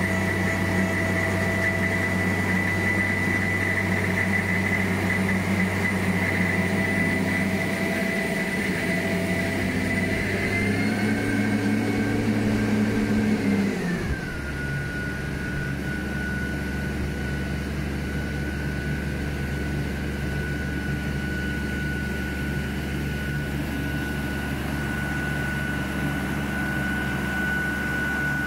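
Hydraulic conductor puller's diesel engine and hydraulic drive running steadily under test, with a high steady whine over the engine note. About ten seconds in the pitch rises briefly, then drops to a lower, slightly quieter steady note.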